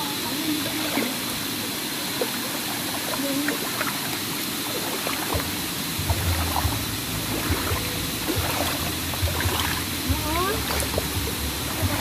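Shallow stream water running over a muddy trail, a steady rush and trickle. About halfway through come low thuds of steps splashing through it.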